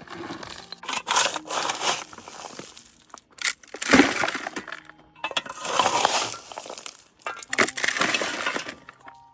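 Loose stones and rubble being shovelled and tipped onto a pile, crunching and clattering in about five bursts of a second or so each.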